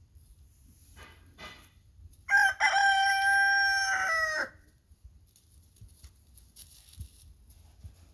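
A rooster crowing once, a single call of about two seconds that drops in pitch at the end. Two short, faint clucks come just before it.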